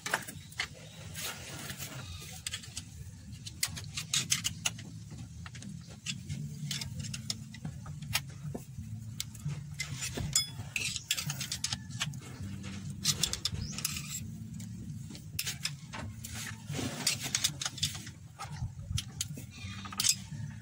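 Irregular metallic clicks and knocks of hand tools and parts on the exposed timing gears of an Isuzu 4BE1 diesel engine as a gear is dismantled, over a steady low hum.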